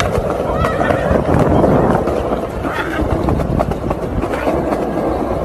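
Busy city street noise, traffic and indistinct voices, loud and continuous.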